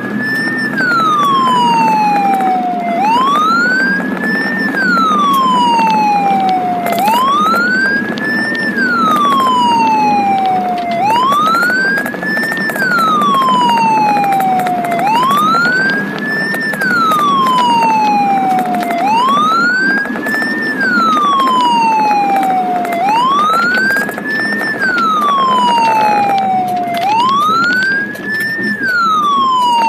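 Ambulance siren in a slow wail, rising quickly in pitch then falling more slowly, the cycle repeating about every four seconds, over the ambulance's engine and road noise heard from inside the cab.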